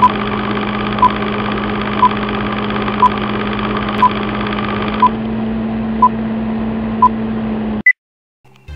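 Film-leader countdown sound effect: a steady hum and hiss with a short beep every second, eight in all, then one higher-pitched beep about eight seconds in, after which it cuts off to silence.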